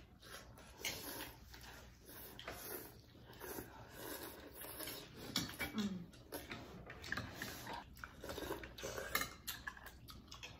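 Chopsticks and spoons clicking and scraping against ceramic bowls while noodle soup is eaten, with soft slurps of noodles and broth.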